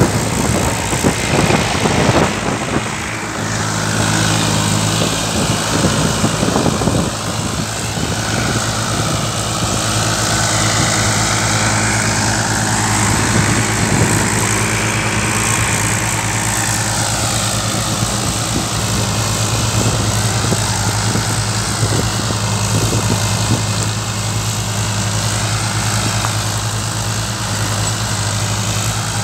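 Tractor diesel engine running steadily under a broad rushing noise, with tractors working rotavators through the soil.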